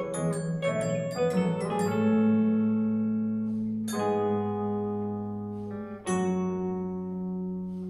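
Instrumental band music with clean electric guitars: a quick run of picked notes, then sustained chords struck about every two seconds, each left ringing and fading.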